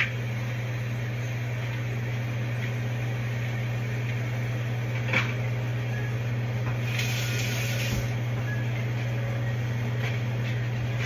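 Steady low hum of a kitchen appliance's fan motor running. A faint click comes about five seconds in, and a short hiss comes a couple of seconds later.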